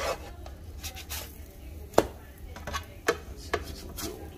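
Black plastic spatula tapping and scraping against a square nonstick frying pan as grilled cheese sandwiches are turned: a handful of sharp clacks, the loudest about two seconds in.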